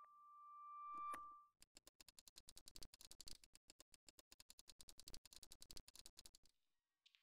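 A single high chime-like note swells and cuts off abruptly about a second and a half in. Then the mechanism of a small crank music box clicks rapidly, about ten clicks a second, for some five seconds as its crank turns.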